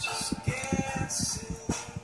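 Glossy slime squished and pressed by hand, making a rapid run of small wet clicks and pops as air trapped in it is squeezed out.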